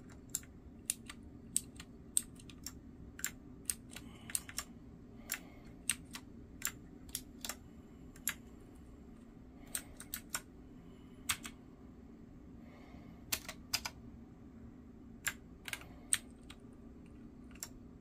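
Keys of a Fidio wireless mechanical keyboard with PBT pudding keycaps clicking, pressed singly and irregularly about two a second, as the RGB lighting is cycled through colours and modes. A faint steady hum lies underneath.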